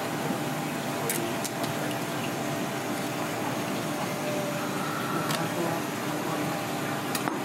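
Steady water-like rushing noise with a low hum under it, and a few faint clicks from knife work on raw fish at the cutting board.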